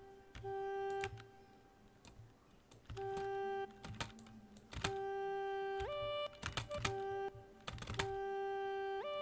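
Short held notes of a sampled duduk played through a Kontakt library, sounding one after another as notes are placed: mostly on one pitch, with a step up to a higher note about six seconds in and again at the very end. Sharp clicks fall between the notes.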